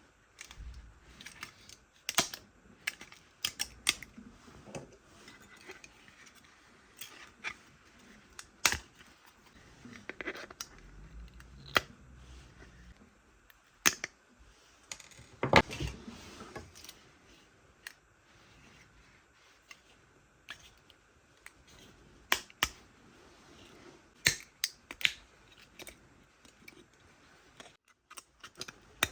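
Irregular sharp clicks and taps of small hard objects being handled and set down, with a louder knock about halfway through.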